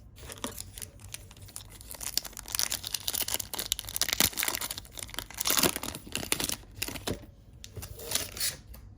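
Foil wrapper of a 2020 Donruss Optic Football hobby pack crinkling and tearing as the pack is ripped open: a dense run of crackles lasting several seconds, then a shorter burst near the end.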